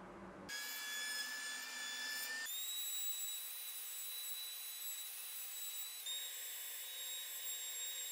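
Table-mounted router with a cove bit spinning at high speed: a steady high-pitched whine that comes in suddenly about half a second in and jumps higher in pitch about two and a half seconds in.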